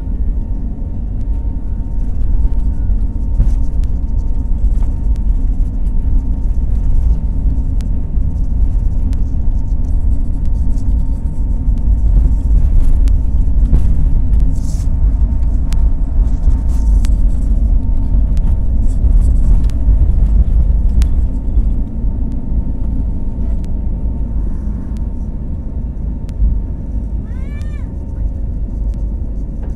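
Jet engines of a Citilink Airbus A320 at takeoff power, heard from a window seat inside the cabin: a loud, steady rumble from the takeoff roll with a thin steady whine over it. The rumble eases about two-thirds of the way through as the aircraft lifts off and climbs.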